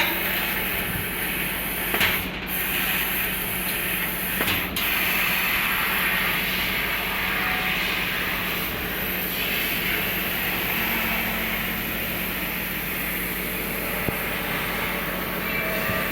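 Senfeng CNC laser cutting machine cutting 3 mm sheet metal: a steady hiss from the cutting head's gas jet over a steady machine hum, with a couple of short clicks in the first five seconds.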